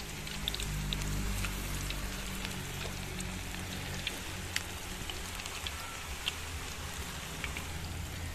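Pakoras deep-frying in hot ghee in a kadhai: a steady sizzle scattered with small pops and crackles.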